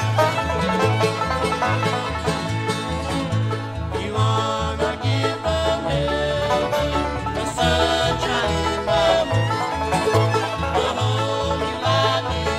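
Bluegrass band playing an instrumental passage with no singing: banjo, guitar, fiddle and mandolin over a bass that alternates between two low notes on the beat.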